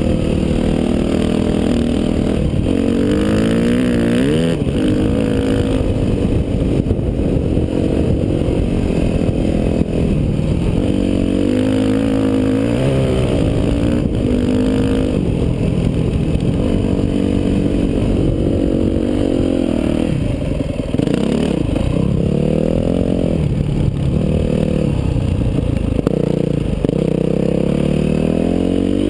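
Yamaha dirt bike engine revving up and down as it is ridden through soft sand, its pitch climbing and dropping repeatedly with a long rising rev near the end.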